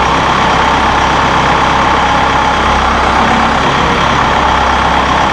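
Massey Ferguson 1760M compact tractor's diesel engine running steadily while its front loader is operated.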